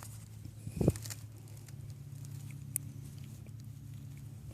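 Handling noise of hands working tangled fishing line on a live bird: scattered rustles and small clicks, with a dull thump about a second in and a sharp click near the three-second mark, over a steady low hum.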